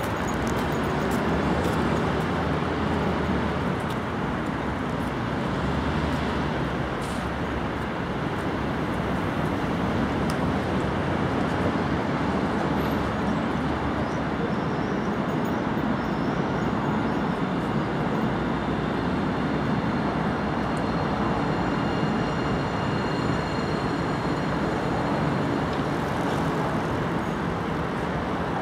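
Steady street and traffic noise as a city bus passes, then an Alstom Citadis tram rolls slowly along the street track, with faint high steady tones in the second half.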